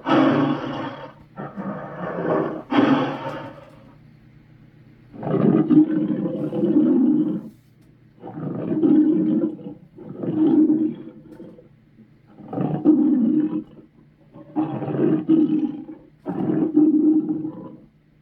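A series of about nine loud monster roars in the style of Sweetums, each a second or two long with short pauses between them.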